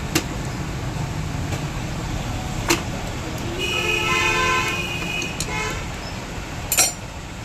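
A vehicle horn sounds as one held tone for about two seconds near the middle, over a steady low traffic rumble. A few sharp metallic clicks fall near the start, at the middle and near the end.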